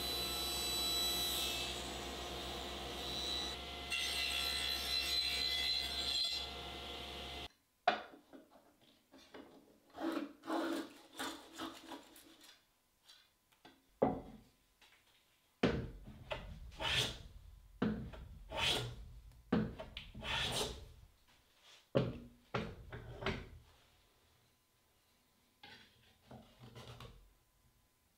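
Table saw running and cutting into a hardwood block, a steady whine that breaks off suddenly about seven seconds in. Then a long run of short hand-plane strokes shaving wood, roughly one a second with a few pauses, dying away near the end.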